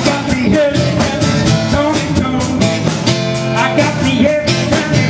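Live rock-and-roll band music with women singing lead over a steady beat.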